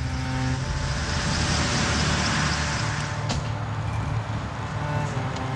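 A large engine running steadily with a low hum, under a rushing hiss that swells in the middle; one sharp click about three seconds in.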